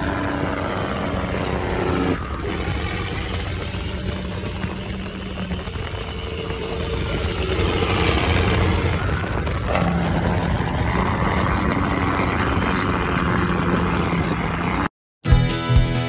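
A 7-ton military truck's diesel engine running on the road, a steady drone mixed with wind and tyre noise. About fifteen seconds in it cuts off abruptly, and accordion music with a beat starts.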